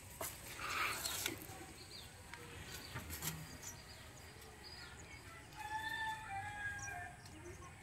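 Rustling as a nylon net bag is handled near the start, then a rooster crowing once about six seconds in, a drawn-out call a little over a second long.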